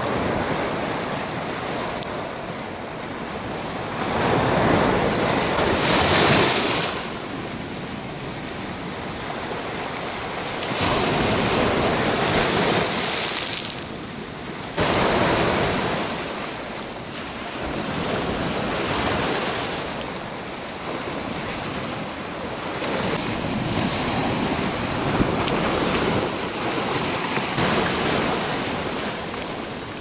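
Small sea waves breaking and washing up over a flat rocky shore, the surf swelling and easing every few seconds.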